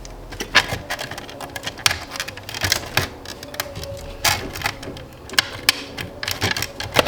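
Irregular sharp clicks, taps and clinks of hand tools and small metal parts being handled during work on a car's steering column.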